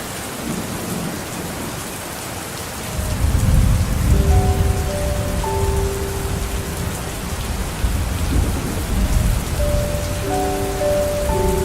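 Steady rain hissing, with a low rumble of thunder rising about three seconds in and rolling on through the rest. From about four seconds in, a few soft held tones sound over it.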